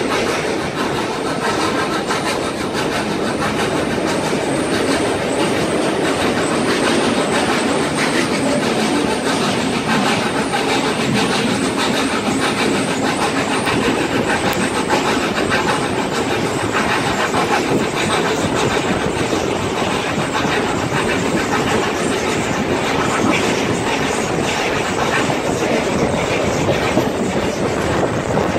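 Steam-hauled passenger train rolling along the track, heard from beside a carriage: a steady rush of wheel, rail and wind noise with a dense run of short clicks.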